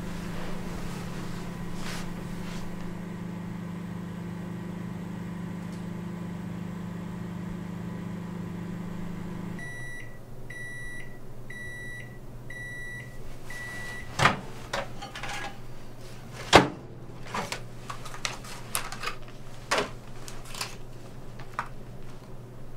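Microwave oven running with a steady hum that stops about ten seconds in, followed by five high beeps signalling the end of the cycle. Sharp clicks follow, the loudest two about fourteen and sixteen seconds in, then scattered small clicks and scrapes.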